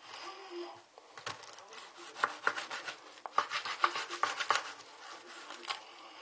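Kitchen knife sawing through pineapple, a rasping cut through the fibrous rind with an irregular run of sharp crunching clicks in the middle few seconds.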